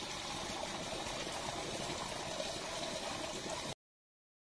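Steady rushing outdoor background noise with no distinct events, cutting off abruptly to silence near the end.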